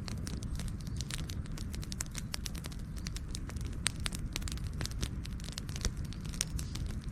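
Campfire crackling: burning wood giving many irregular sharp snaps and pops over a steady low rumble of the fire.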